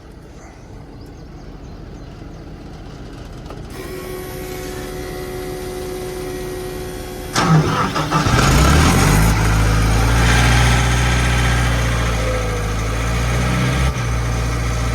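Sullivan D185 air compressor's diesel engine being started: a steady whine for a few seconds, then the engine cranks and catches about halfway through, and settles into a steady idle.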